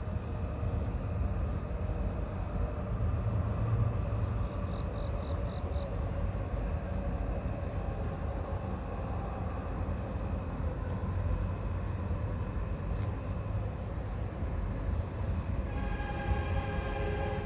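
Steady low rumble of a moving vehicle, with a few faint steady tones joining in near the end.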